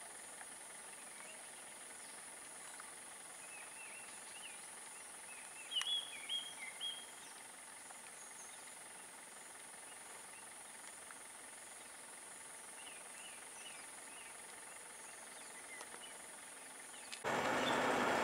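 Faint outdoor ambience: a steady high-pitched insect drone with scattered short bird chirps, loudest about six seconds in. Near the end it cuts suddenly to a much louder vehicle engine.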